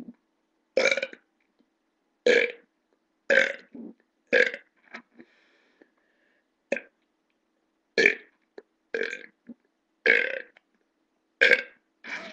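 A woman belching on purpose, over and over: about ten short burps, roughly a second apart.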